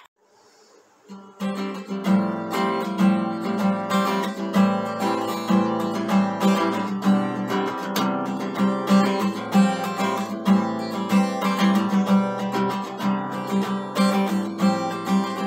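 Acoustic guitar strummed in a steady rhythm, chords ringing between strokes; it comes in about a second in after a near-quiet start.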